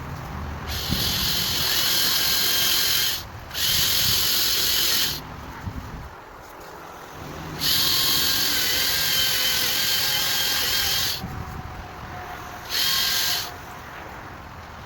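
Makita 18Vx2 LXT brushless electric chainsaw running in four bursts with short pauses between, a high-pitched whine of motor and chain, the longest burst about three and a half seconds.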